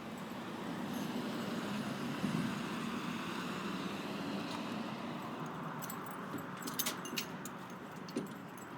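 A motor vehicle passing by, its engine and tyre noise swelling over the first couple of seconds and then slowly fading. A few sharp clicks come about seven seconds in.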